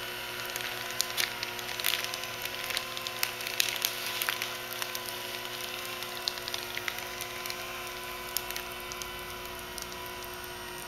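Malcom Uniplan E hot-wedge welder running as it welds a hem in polyethylene billboard material: a steady machine hum with scattered crackling ticks, most frequent in the first few seconds.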